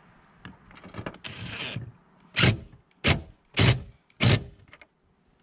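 Cordless drill-driver running a bolt into the door in four short trigger bursts, after a brief rustle of handling.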